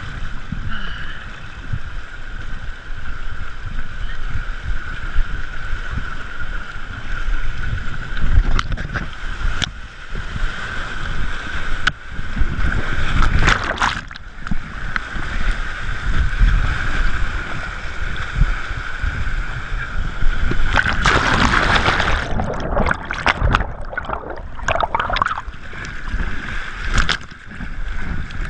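Fast, muddy floodwater rushing and churning around a camera carried in the current, with heavy low rumbling and buffeting on the microphone. The sound surges and drops repeatedly as the camera dips under the water and back out, with a louder burst of rushing water near the end.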